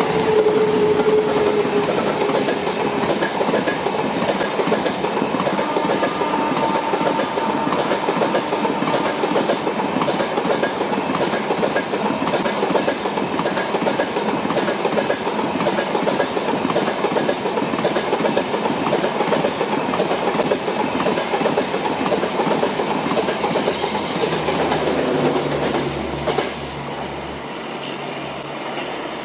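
LHB passenger coaches of an express train rolling past behind a WAP7 electric locomotive, the wheels clattering over the rails. The noise drops away near the end as the last coach goes by.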